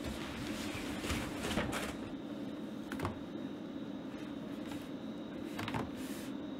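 A cardboard box being set down and handled, with a few short knocks and scrapes over a steady low hum.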